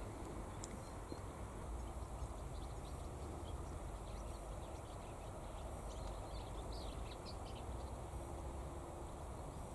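Outdoor ambience: a steady low rumble of wind on the microphone, with faint, brief bird chirps clustered about six to eight seconds in.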